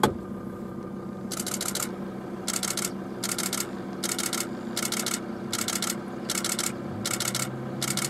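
Camera shutters firing in repeated rapid bursts, each about half a second long, over a car engine idling steadily. There is one sharp click at the very start.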